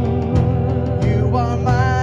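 Worship band playing a song on a steady beat, with a singer's wavering held note coming in about two-thirds of the way through.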